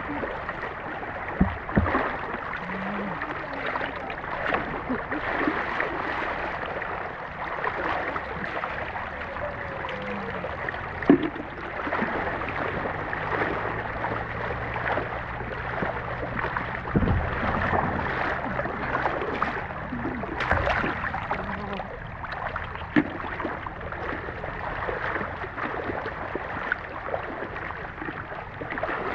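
Water sloshing and splashing with a steady noisy wash and scattered short, sharp splashes or knocks; the loudest comes about eleven seconds in.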